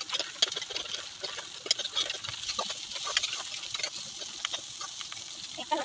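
Spatula scraping and clinking against a wok as fiddlehead fern greens and egg are stir-fried, over a steady sizzle. The scrapes come quickly and irregularly.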